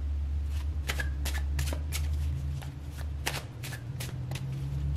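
Tarot cards being shuffled by hand: a run of quick, irregular snaps, over a low steady hum.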